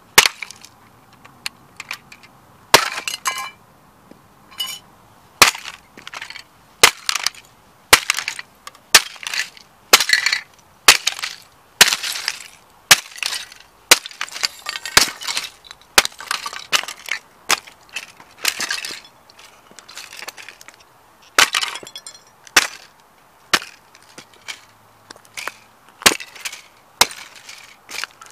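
Boots stomping a red model Ferrari toy car against asphalt over and over: sharp cracks and snaps as its body and clear plastic window parts break apart, with broken bits scattering on the road. After a few lighter clicks at the start, the hits come about one or two a second.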